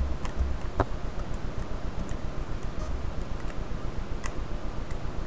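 Small, irregular clicks and ticks of plastic phone parts and tools being handled during a smartphone teardown, over a steady low hum.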